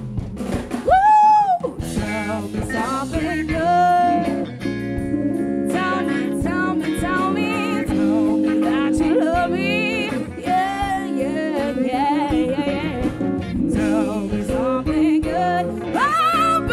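Live band music: a woman singing into a microphone in long, sliding, wavering notes over electric bass, electric guitar and drum kit.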